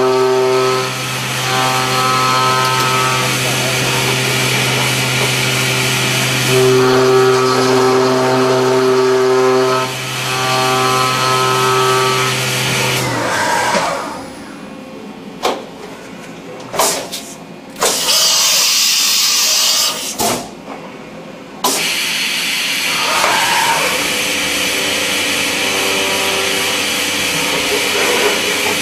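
CNC machine cutting a brass part: a steady, pitched spindle whine over a broad hiss of cutting. About thirteen seconds in the cut stops and the machine goes quieter, with a few sharp clunks and a brief hiss while the tool repositions. Cutting resumes about nine seconds later.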